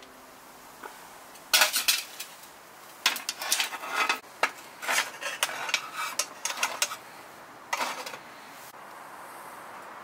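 Metal clanking and clinking in bursts: steel tongs knocking against a small stainless steel wood stove and a metal candy tin as leftover embers and ash are tapped out into the tin, then the tin's metal lid being handled.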